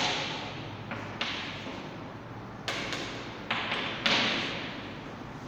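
Chalk on a chalkboard while a word is written by hand: a series of sharp taps as the chalk meets the board, some followed by a short scratchy stroke.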